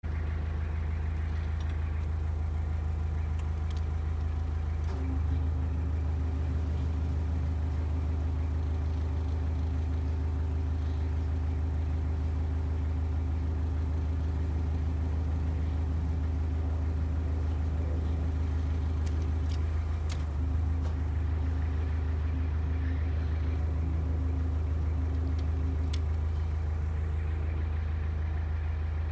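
Engine idling steadily with a deep, even hum. Its tone shifts slightly about five seconds in and again around twenty seconds.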